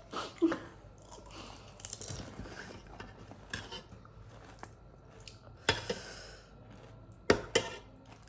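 Panipuri being eaten: crisp puri shells cracking and being chewed, with scattered small clicks. The loudest moments are a short crackling crunch about six seconds in and a sharp crack about a second before the end.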